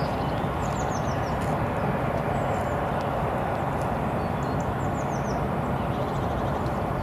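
Steady outdoor rushing noise with a small bird calling over it: two short runs of high, quick falling chirps, about a second in and again around five seconds in.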